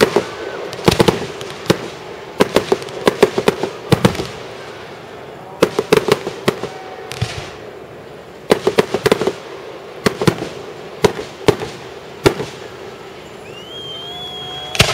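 Fireworks shells bursting close by: rapid clusters of sharp bangs and crackles, a new cluster every second or two.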